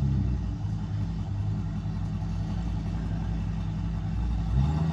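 Ford 6.8L V10 engine of a motorhome running steadily as reverse is tried on its freshly rebuilt 4R100 automatic transmission. Near the end its note rises and grows louder as the engine takes up the load.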